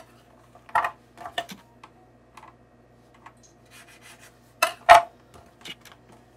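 Knife blade tapping and scraping on a hard work surface while cutting a thin rolled sheet of samosa dough in half: a few short, sharp clicks, the loudest pair about five seconds in.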